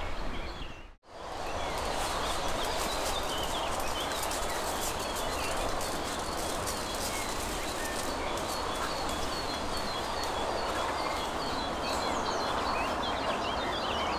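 Outdoor ambience: a steady, even rushing noise with small birds chirping faintly over it. The sound drops out briefly about a second in.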